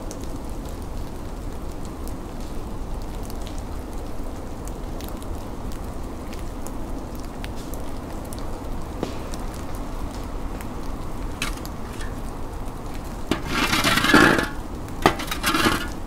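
Outdoor snowstorm ambience: a steady low rumble with scattered faint ticks. Near the end comes a loud noisy burst lasting about a second, then two shorter ones.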